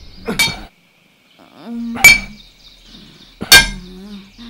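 Hammer striking stone to carve it: three sharp, ringing clangs about a second and a half apart.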